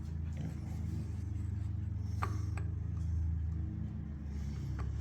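A few light metallic clinks, about two seconds in and again near the end, as loose Model T engine parts are moved by hand to show their play, over a steady low hum.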